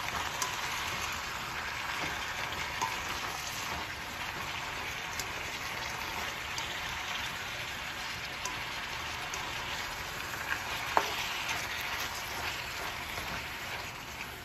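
Noodles and vegetables sizzling in a hot wok as they are stirred with a spatula, a steady frying hiss with a few light clicks of the utensil against the pan.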